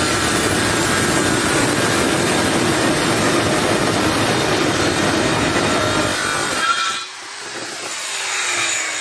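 Handheld electric circular saw cutting through a wooden plank. About seven seconds in the cut ends and the saw runs on more quietly, its pitch falling.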